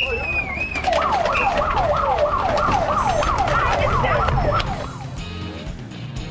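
A siren sounds in quick falling sweeps, about three a second, for roughly four seconds before stopping, as a bunch of road cyclists rolls off the start line. Sharp clicks of cleats snapping into pedals sound underneath.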